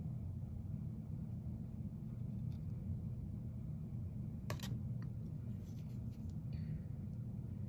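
Steady low room hum, with a sharp click about four and a half seconds in and a few faint ticks after it as a plastic paint comb is lifted off the canvas and set down on the table.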